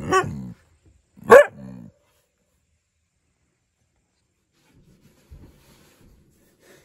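A dog barking twice near the start, the barks about a second apart, followed by quiet with a few faint knocks.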